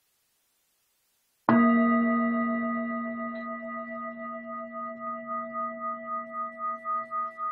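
A meditation bell, singing-bowl style, struck once about one and a half seconds in, then ringing on with several steady tones that slowly fade into a regular wavering pulse of a few beats a second. It is the bell that marks the start of a guided meditation.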